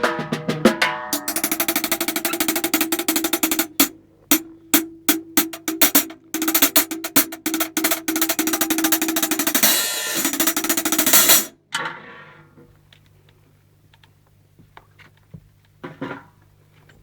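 Drum kit played during a sound check: fast snare rolls and single strokes. A long roll breaks off about eleven and a half seconds in, leaving only a few faint taps over a low steady hum.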